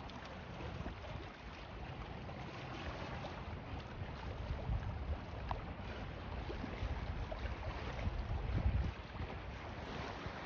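Wind buffeting the microphone in low rumbling gusts, strongest about eight and a half seconds in, over the steady wash of choppy waves against a concrete pier.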